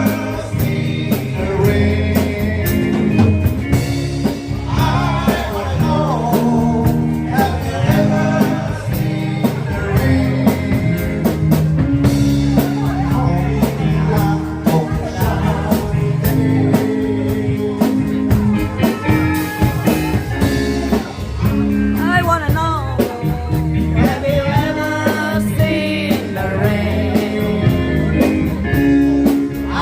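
Band playing a blues-rock song with a singer, guitar and a steady beat.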